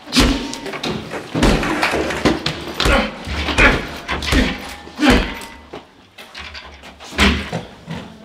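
A series of heavy thumps and bangs, roughly one a second, each with a deep thud underneath; the loudest come at the start and again near the end.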